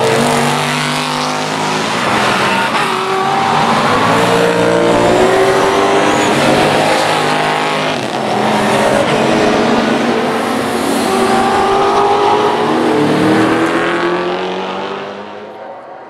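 Several saloon race car engines running together through a tight chicane, their pitch falling and rising as the cars brake, change down and accelerate away. The sound fades near the end as the pack pulls away.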